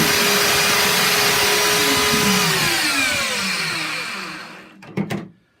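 Two belt sanders running, then switched off about two and a half seconds in, their motors whining down in pitch to a stop. Two brief sharp sounds follow near the end.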